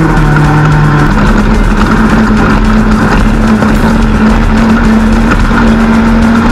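Class 10 off-road race car engine running hard at steady revs, its pitch stepping up about a second in and then holding. Music plays underneath.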